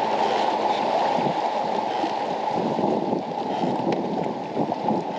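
Steady wind noise on the microphone, with water lapping and gurgling against the bass boat's hull.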